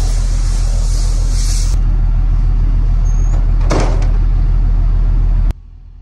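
Compressed air hissing from an air hose blowing chaff off a tractor, over a steadily running engine. The air stops about two seconds in, and a short blast follows about two seconds later. The sound cuts off suddenly near the end.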